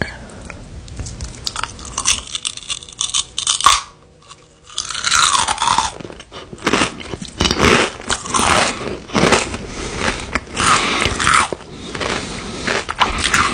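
Doritos 3D Crunch corn snack being bitten and chewed close to the microphone: crisp, crackling crunches, with a short lull about four seconds in before the chewing picks up again.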